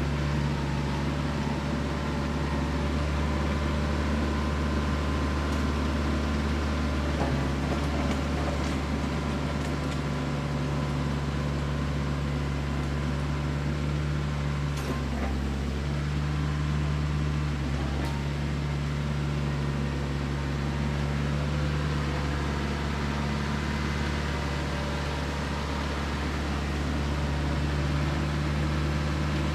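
Branson 4520 diesel tractor engine running steadily under load while the tractor pulls a box blade over dirt. A constant low drone, growing a little louder near the end as the tractor comes closer.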